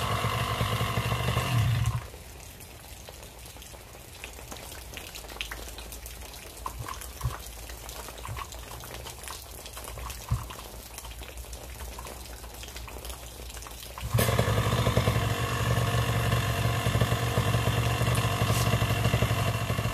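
Light rain pattering and dripping, with a few small clicks. Loud music plays for the first two seconds, cuts out, and comes back about fourteen seconds in.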